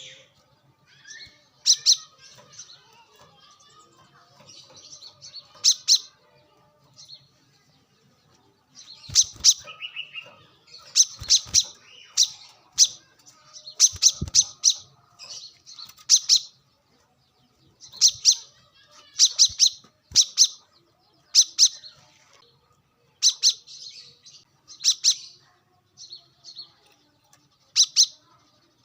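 Brown-throated sunbird (kolibri kelapa) calling: short, sharp, high-pitched chips, singly or in quick clusters of two to four, repeated every second or two.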